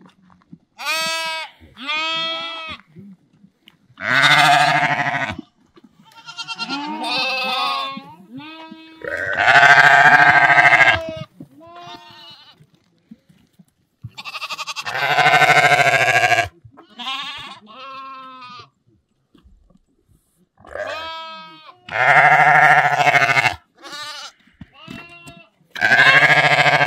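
A flock of small livestock bleating, many animals calling one after another. Short, thinner calls come between about five long, loud, harsh bleats.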